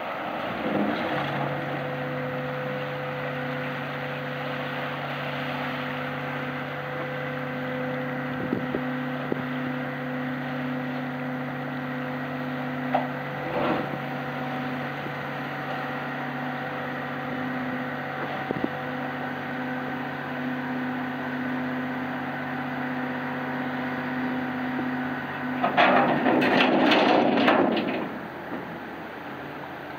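A small car ferry's engines running with a steady, multi-pitched droning hum as it pulls away from the slipway, with a few faint knocks. Near the end the hum cuts out and a loud rushing, clattering burst lasts about two seconds.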